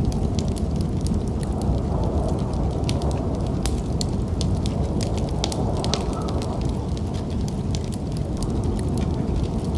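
Wood fire burning in a fireplace: a steady low rumble with frequent sharp crackles and pops. A faint hiss of wind runs beneath it.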